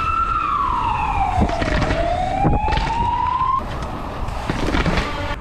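A siren wailing: one slow fall and rise in pitch that cuts off suddenly about three and a half seconds in, over scattered knocks and rattling.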